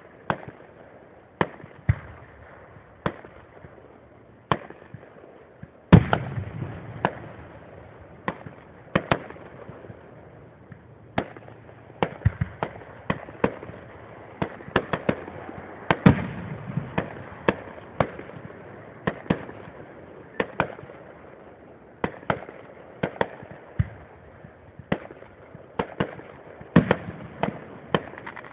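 Fireworks display: a steady run of aerial shell bursts, sharp bangs coming irregularly about once a second with crackling between them. The loudest booms come about six and sixteen seconds in, each followed by a low rumble.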